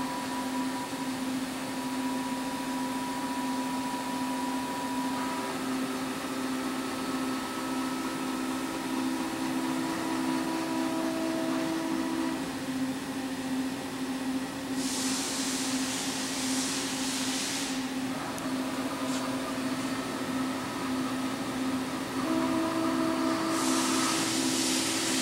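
Wire-cut EDM machine running: a steady hum with several steady whining tones that switch on and off. Two spells of loud hiss come through, one about fifteen seconds in lasting about three seconds and another near the end.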